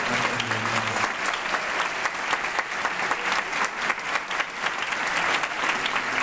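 Large audience applauding: many hands clapping in a dense, steady patter.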